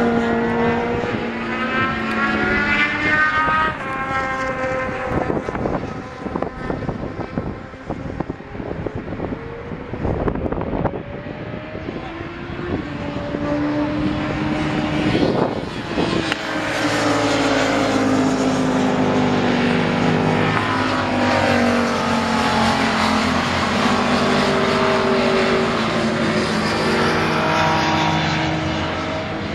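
Sport motorcycle engines at high revs on a race circuit, their notes rising and falling as the bikes change gear and pass by. In the second half several bikes run together, their overlapping engines making a steady layered drone.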